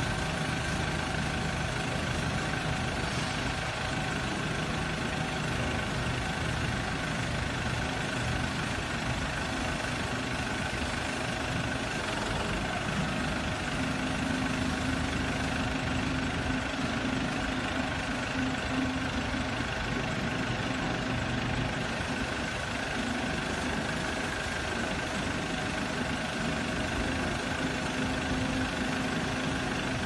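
Diesel engine of an Aimix AS-2.0 self-loading concrete mixer truck running steadily. A low steady hum joins about halfway through.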